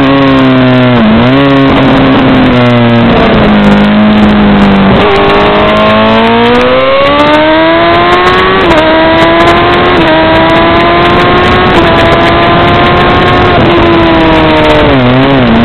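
Honda CBR1000RR (SC57) inline-four engine heard on board at racing speed. The engine note falls as the bike slows for a corner, holds steady through it, then climbs as it accelerates out. It drops briefly at each of four upshifts along the straight and falls away again near the end as the throttle comes off.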